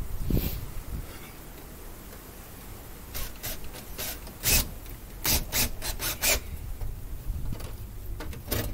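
A series of short scraping, rasping strokes, about eight over three seconds, from wire and hands rubbing against a metal electrical box during wiring.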